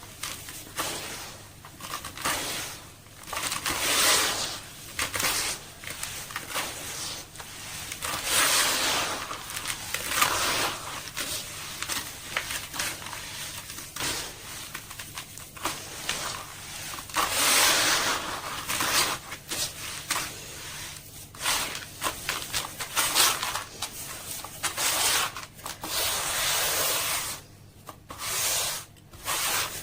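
Sand-cement slabs crumbling in water, giving crunchy, crackling hiss in repeated swells a second or two long, with a few sharp cracks between them.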